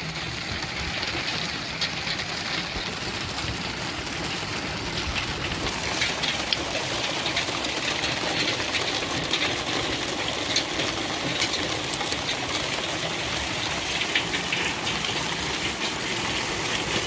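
Hail falling: a steady hiss dense with small ticks of hailstones striking, which grow thicker after a few seconds.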